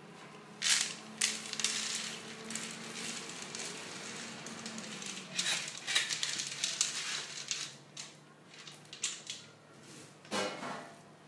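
Washed green coffee beans poured out of a glass bowl onto a cloth tea towel, a dense rattling cascade of beans. Then the beans are spread out by hand in softer, scattered rustles, with a sharp knock near the end.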